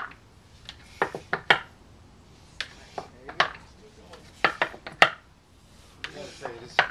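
Pegs knocking in and out of the holes of a wall-mounted pegboard as a climber moves up it. The knocks are sharp and irregular, about a dozen of them, several coming in quick pairs or threes.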